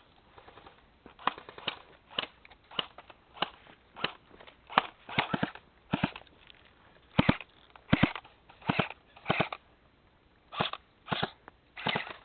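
Airsoft guns firing single shots: sharp pops at irregular spacing, about one or two a second.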